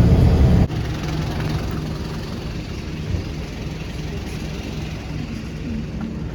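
Steady engine hum and road noise of a moving vehicle. A louder stretch of the same noise cuts off abruptly less than a second in.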